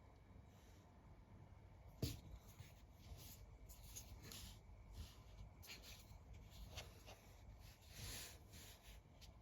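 Faint handling noises: a sharp click about two seconds in, then a run of soft, short scraping and rubbing sounds.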